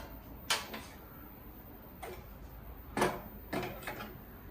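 Clay cooking pot being set down and shifted on a gas stove's metal burner grate: a handful of short, sharp knocks spread through, the loudest about three seconds in.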